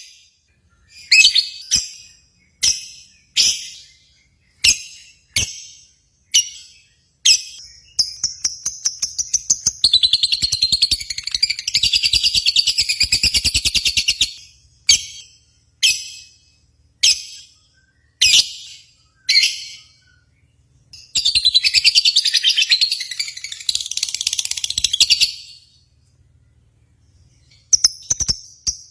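Lovebirds chirping in short, shrill bursts about once a second. Two long, continuous high trills break in, each lasting several seconds: one about ten seconds in, the other just past twenty seconds.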